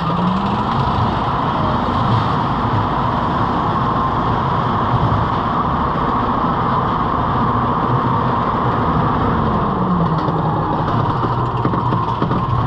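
Roller coaster chain lift hauling the car up the lift hill: a steady mechanical running noise with a low hum that rises in pitch just after the start and drops about ten seconds in, near the crest.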